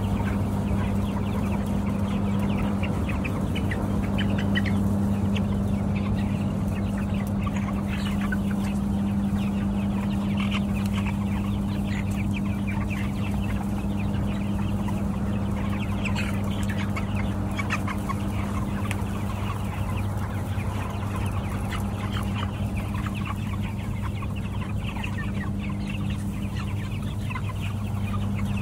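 A large flock of broiler chickens clucking and calling continuously, many short calls overlapping, over a steady low hum.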